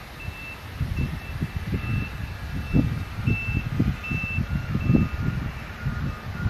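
A construction vehicle's reversing alarm beeping at one steady high pitch, about two beeps a second, over irregular low thumps and rumble.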